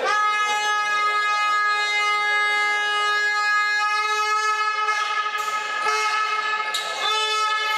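A horn sounding one long, steady, single-pitched note for about five seconds, then starting up again near the end.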